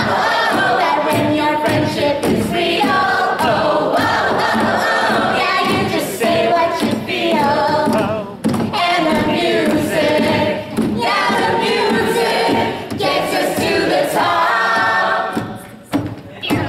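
A group of women singing a song together, with held notes and short breaks between phrases; the singing drops away near the end.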